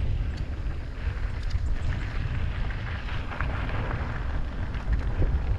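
Wind rumbling on the microphone over the rolling and rattling noise of an electric mountain bike ridden fast down a dirt trail.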